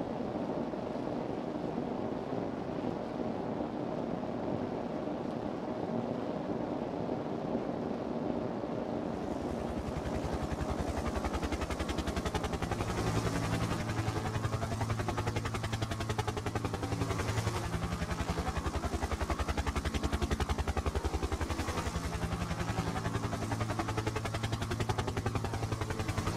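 A steady rushing noise, joined about nine seconds in by a rapid, even throbbing with a low hum, like an engine or rotor, which grows a little louder.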